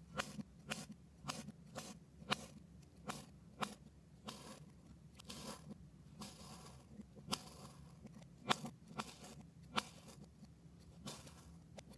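A Hampton Forge knife slicing through packed balls of kinetic sand on a cutting board: a run of crisp crunches, about two a second, with a few longer gritty scrapes in the middle.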